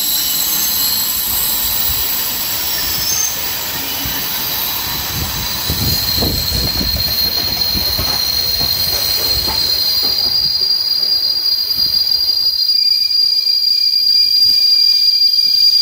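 Passenger coaches of a steam-hauled train rolling past at low speed with a steady high-pitched wheel squeal. A DR class 41 steam locomotive goes by with a heavy rumble about six to nine seconds in. The squeal grows louder and a second squealing tone joins it near the end as the train runs slowly into the station.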